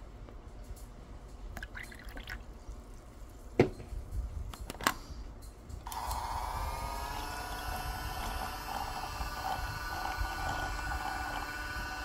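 Liquor being poured into a toy mini washing machine, then two sharp clicks. About six seconds in, the machine's small electric motor starts and runs with a steady whir, spinning the soju-and-beer mix in its drum.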